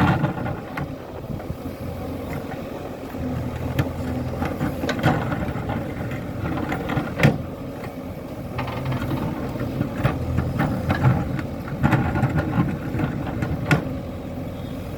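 JCB 3DX backhoe loader's diesel engine running steadily, with several sharp metallic knocks and clanks from the machine's working parts, the loudest about seven seconds in.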